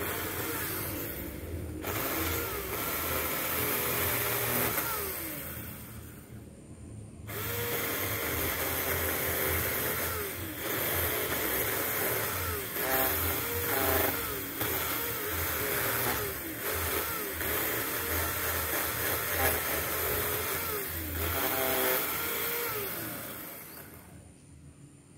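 Battery-powered 4-inch mini chainsaw cutting through an old water apple tree trunk, its motor pitch sagging and recovering as the chain bites into the wood. It eases off briefly about six seconds in, then cuts on and stops near the end.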